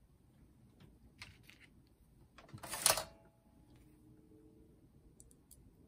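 Hands handling small parts and tools on a workbench: scattered faint clicks and ticks, with one louder burst of handling noise about two and a half seconds in that lasts about half a second.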